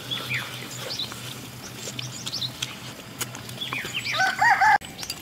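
Domestic chickens calling, with one louder, drawn-out call about four seconds in, over the high chirping of small birds.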